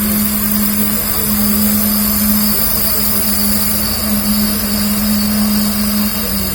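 Handheld laser welding machine running: a steady hum with a hiss over it. The hum drops away a little before the end.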